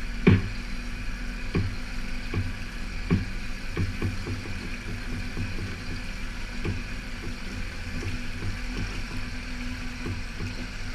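Outboard motor running steadily at low speed while the boat tows a personal watercraft on a tow bar, with irregular low thumps and knocks over it, the loudest about a third of a second in.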